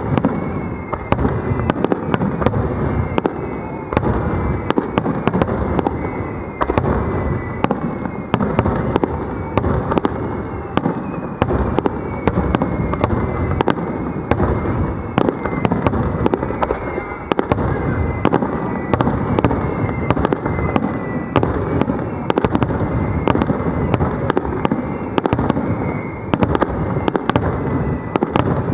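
Aerial fireworks going off in a dense, continuous barrage of bangs and crackles, with short falling whistles recurring throughout.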